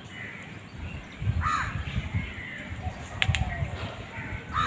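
Crows cawing, a few separate harsh calls, with a sharp click about three seconds in and a low rumble underneath from about a second in.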